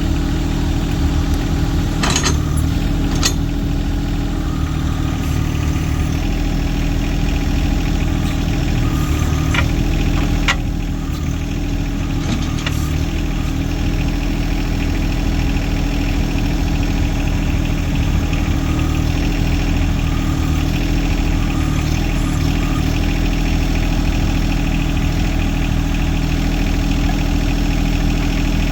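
John Deere tractor engine idling steadily, with a few sharp knocks about two, three and ten seconds in.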